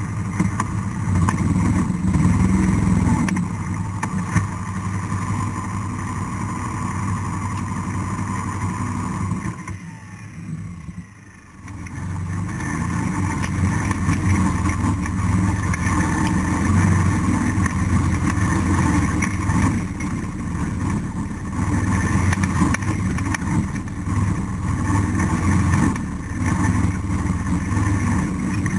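ATV engine running steadily. It drops away briefly about ten seconds in, then comes back and runs on.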